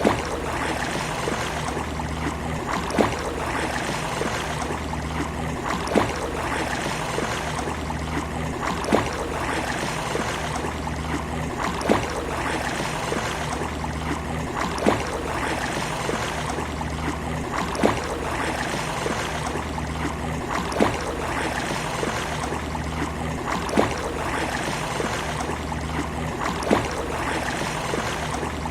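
Steady rushing and lapping of water, given as sea waves at a beach. A sharp click comes back about every three seconds, and the whole sound repeats on the same three-second cycle.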